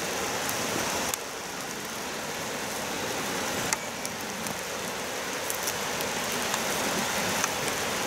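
Steady rushing hiss of water, with scattered light ticks.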